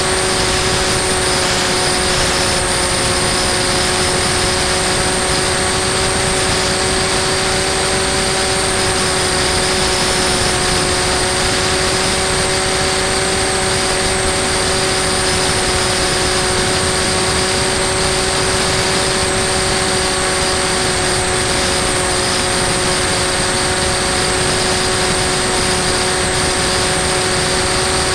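Bixler 2 RC glider's brushless electric motor and pusher propeller running at a steady pitch, heard from the plane's onboard camera, over a steady rush of wind noise.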